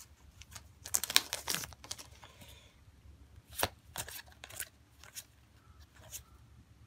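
Digimon trading cards handled in the hands: a quick rustle as cards are gathered up, then quiet single snaps and slides as cards are moved one behind another, every half second or so.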